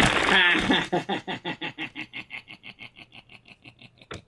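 A man bursting into laughter, then a long run of rapid, even giggles, about seven a second, slowly fading.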